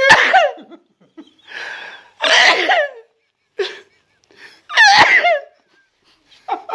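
Several loud sneezes brought on by snuff, the sharpest right at the start and about five seconds in, with laughter among them.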